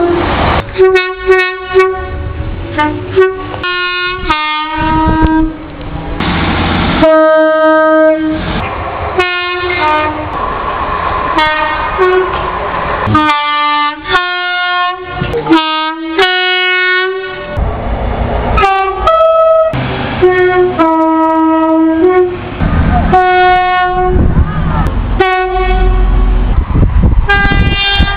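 A run of train horn blasts in quick succession, short toots and longer blasts at several different pitches, some of them two-tone horns sounding their high and low notes. Rumbling train noise sits under and between the blasts.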